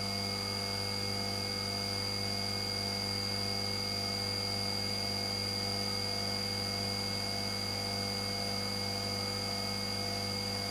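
Syil X5 CNC vertical milling machine running with a steady hum and a high, even whine as its axis feeds along under hand-pendant control while the program is stepped through.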